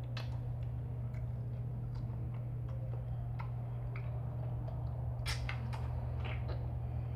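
Scattered soft clicks and smacks of two children chewing raw strawberries, irregularly spaced with a small cluster near the end, over a steady low electrical hum.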